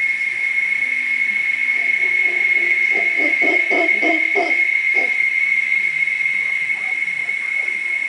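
Cicadas droning as one steady high whine, with a run of low, rhythmic grunting calls from mantled howler monkeys, about three a second, from about three to five seconds in.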